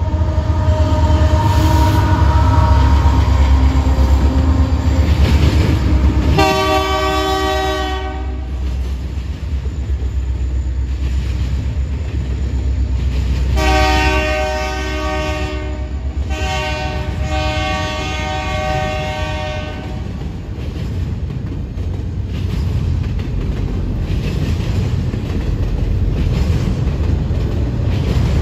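Canadian Pacific freight train passing, its diesel locomotive and cars giving a heavy steady rumble. The locomotive air horn sounds a chord three times: a short blast about six seconds in, then two longer blasts near the middle.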